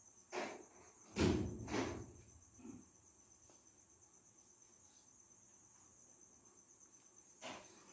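A few soft knocks and clicks from handling a laptop and its keyboard, the loudest two a little over a second in, over a faint steady high-pitched whine.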